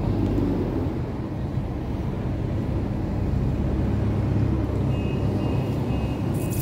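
Alexander Dennis Enviro200 single-decker bus driving past with cars, its diesel engine giving a steady low hum that swells as it passes.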